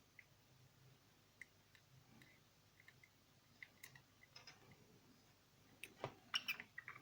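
Mostly near silence with faint scattered clicks and light taps of small plastic parts being handled while gluing. A short cluster of louder clicks comes about six seconds in.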